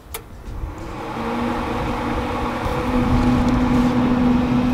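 A click as the Traeger pellet grill is switched on. The grill's fan and auger motor then start up into a steady hum that builds over the first second, its pitch stepping up slightly about three seconds in.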